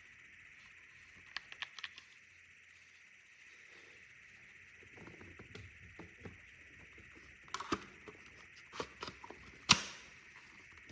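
Scattered clicks and knocks of things being handled, in small clusters, with one sharp knock near the end, over a faint steady hiss.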